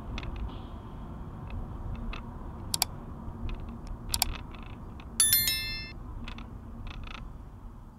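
A YouTube subscribe-button sound effect: a few sharp mouse clicks, then a bright bell ding a little past five seconds in that rings and fades within about half a second. Under it, the low steady road noise of a car driving.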